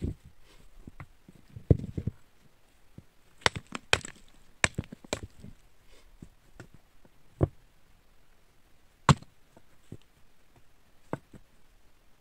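Irregular sharp knocks and clacks of loose stone slabs being handled and set down on rocky ground, with a short stretch of scraping about 2 s in. The loudest knocks come about 2 s in and about 9 s in.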